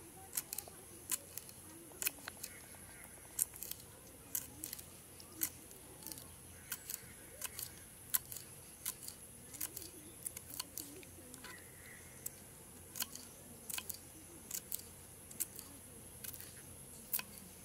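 Kitchen knife chopping green beans on a wooden plank: sharp, irregular taps of the blade cutting through the beans onto the wood, about two a second.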